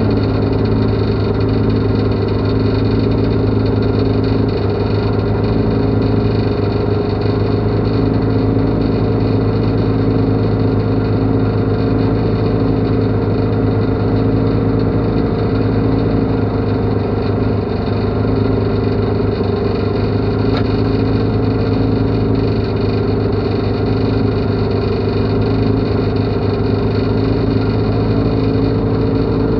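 Toyota Corolla rally car's engine idling steadily, heard from inside the stripped, roll-caged cockpit.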